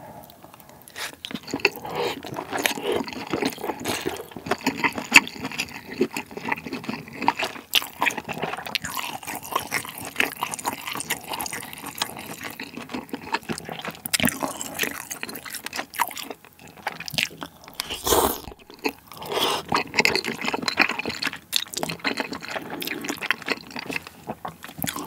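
Close-miked wet chewing and slurping as wide Chinese glass noodles in spicy malatang broth are sucked in and chewed, with continuous squishy, smacking mouth sounds.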